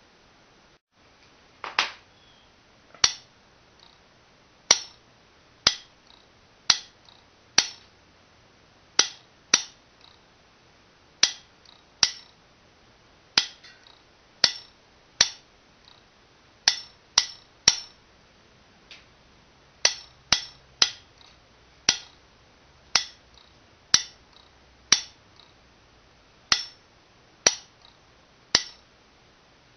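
Homemade telegraph clicking as its key is tapped: the metal armature snaps against the nail-core electromagnet with each press. The clicks are sharp and irregularly spaced, about one to two a second, sometimes two in quick succession.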